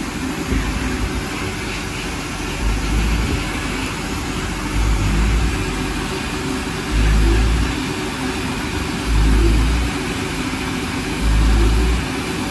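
Sandblasting or vapor-blasting equipment running: a steady hiss of air and grit with a heavy low pulse about every two seconds.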